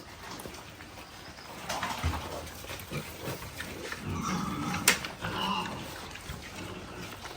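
Pigs calling: several short pitched calls a second or two apart, with one sharp click about five seconds in.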